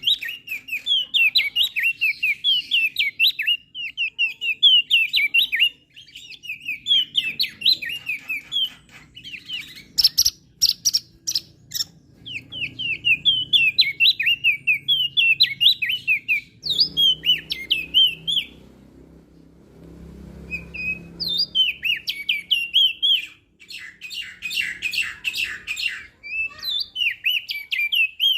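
Crested white-eye (opior jambul) singing: repeated bursts of quick, high, twittering chirps separated by short pauses. Twice, about a third of the way in and again near the end, the song turns into a fast, dry, buzzy rattle.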